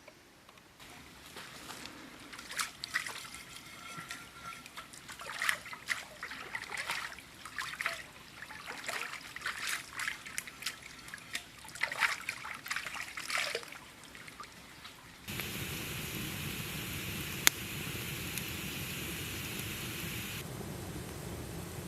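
Water splashing and trickling in irregular bursts, then, after an abrupt change, the steady rush of flowing water with a single sharp click.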